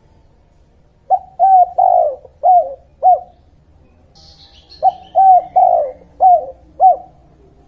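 Dove cooing: two phrases of about five or six short coos each, with a pause of a couple of seconds between them. A brief faint high chirp from another bird comes in the pause.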